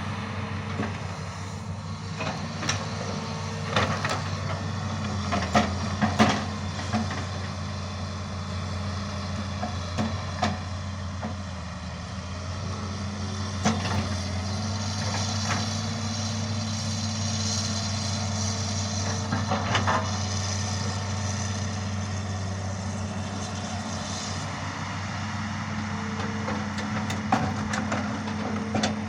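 Hitachi Zaxis 210 excavator's diesel engine running steadily while clearing land, with scattered sharp knocks and cracks.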